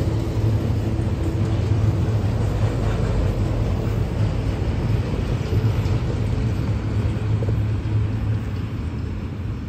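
Union Pacific freight train of autorack cars rolling past: a steady rumble of wheels on rail, easing off slightly near the end as the cars move away.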